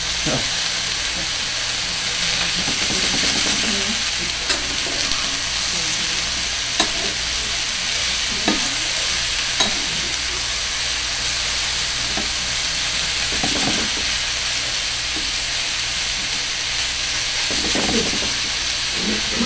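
Chicken and frozen mixed vegetables frying in oil in a skillet: a steady sizzling hiss, with a few sharp clicks of a metal spatula against the pan as the food is stirred.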